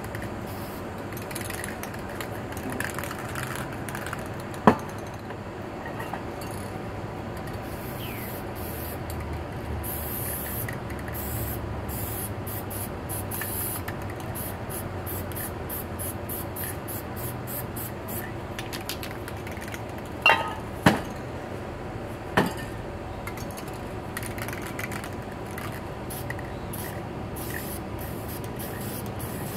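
Aerosol spray paint cans hissing in short on-and-off spurts as paint is sprayed onto a panel. A few sharp clacks stand out, the loudest sounds: one about five seconds in and three close together around twenty to twenty-two seconds.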